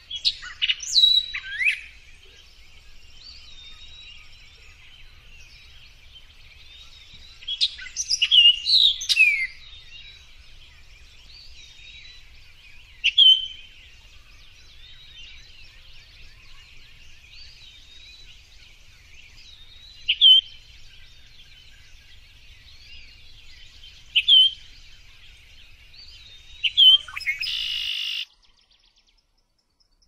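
Male orchard oriole singing short bursts of quick, sweeping song every few seconds over a steady background chorus of other birds. The sound cuts off abruptly near the end.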